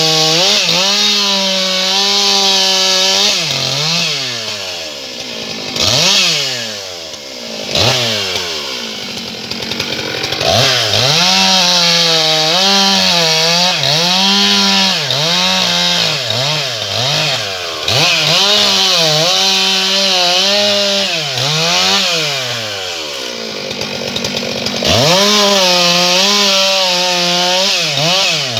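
Stihl MS 661 C-M two-stroke chainsaw cutting small logs. The engine is held high and pulls down and recovers again and again in the cuts, over a steady hiss of chain through wood. Twice it drops off toward idle and revs back up between cuts.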